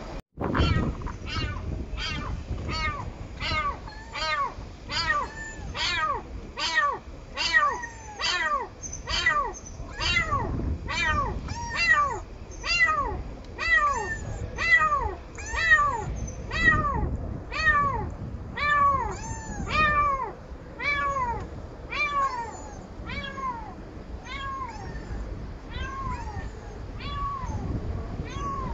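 A kitten trapped in a drain meowing over and over, short calls that rise and then fall in pitch, about two a second at first and slowing toward the end.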